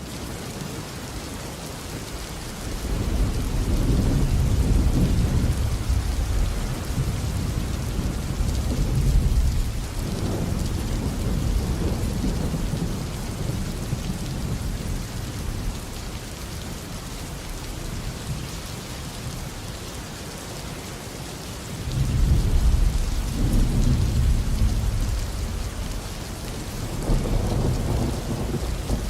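Thunderstorm: heavy rain falling steadily, with long rolls of thunder rumbling low, one building about three seconds in and lasting several seconds, another starting about twenty-two seconds in, and a shorter one near the end.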